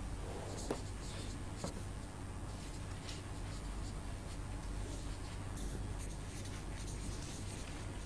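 Handwriting strokes: a series of short, irregular scratches of a writing tool on a surface, over a steady low hum.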